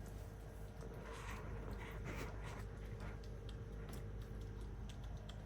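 A pet wheezing: a run of short, noisy, breathy wheezes over about two seconds, starting about a second in.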